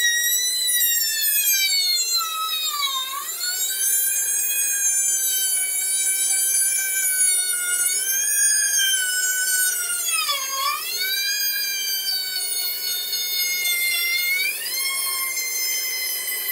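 Bandsaw with a dull blade cutting through a thick block of wood: a loud, high whine that dips sharply in pitch twice, about three and ten seconds in, and climbs back up near the end.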